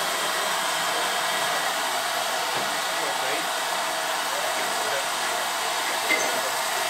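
Steam escaping from a Lancashire and Yorkshire 0-6-0 saddle tank steam locomotive in a steady, loud hiss. A short click sounds about six seconds in.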